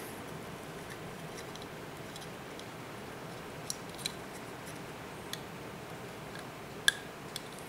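A few small, sharp clicks of tiny metal screws, washers and spacers being handled and picked up, over a steady background hiss; the sharpest click comes near the end.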